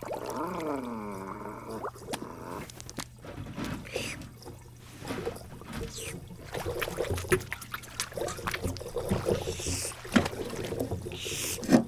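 Cartoon cat voice: a drawn-out yowl that slides down in pitch for about two seconds. It is followed by a long run of water sounds, trickling and light splashing with small clicks and bumps.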